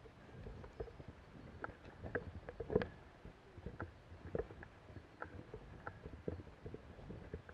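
Footsteps through woodland undergrowth: irregular crunches, snaps and knocks of twigs and cut branches underfoot, the loudest a little under three seconds in.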